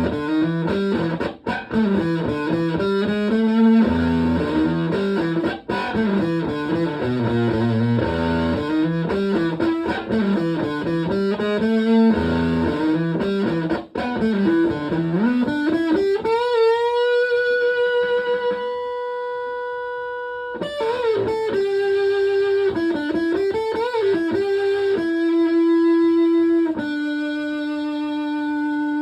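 Electric guitar (Epiphone Les Paul) through a Tone Bender MKII fuzz pedal with Mullard OC81D germanium transistors, into a Fender Twin Reverb-style amp. It plays a riff of quick single notes, then a long note held with a slow vibrato that fades. After that come a few more notes, ending in two long held ones.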